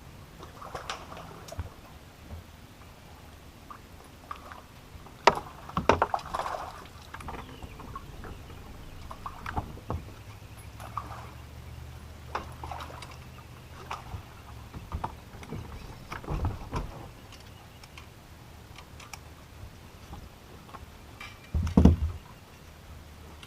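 Knocks and rattles of fishing gear being handled in a small boat, with several sharp bumps, the loudest near the end, over a faint low hum.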